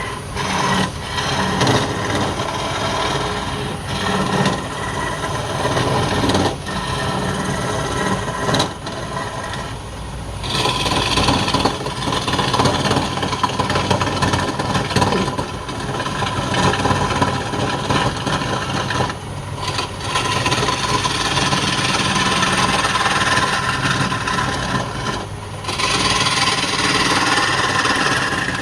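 Wood lathe running while a tool rasps against the spinning wood, a steady scraping with a few short breaks where the tool comes off the work.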